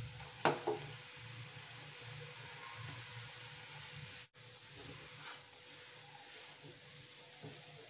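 Faint steady sizzling of hot oil in a frying pan as mashed boiled potatoes are scraped in with a silicone spatula and stirred into fried onion and spices. A short sharp knock about half a second in, and the sound drops out for an instant about four seconds in.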